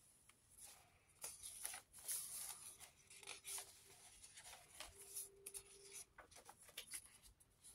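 Faint rustling and soft taps of paper pages being handled and turned by hand in a handmade junk journal.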